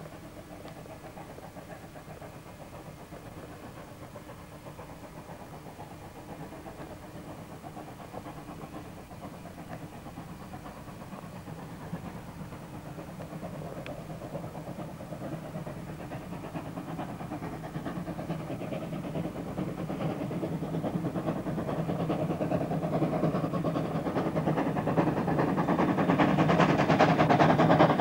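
Queensland Rail C17-class 4-8-0 steam locomotive approaching along the line, its running sound faint at first and growing steadily louder.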